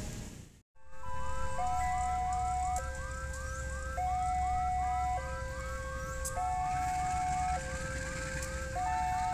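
Electronic level crossing warning alarm: a high-low two-tone signal alternating about every 1.2 seconds over a fast repeating chirp, starting abruptly about a second in. It signals an approaching train.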